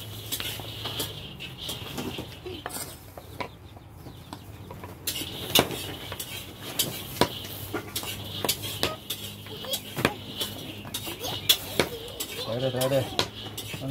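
Cleaver chopping hard brown blocks on a round wooden chopping block: irregular sharp knocks, several of them loud, with a few quiet seconds around the fourth second.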